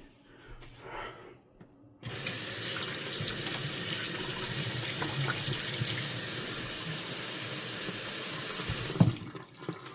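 Kitchen faucet turned on about two seconds in, water running steadily into the sink as a loud even hiss, then shut off about a second before the end.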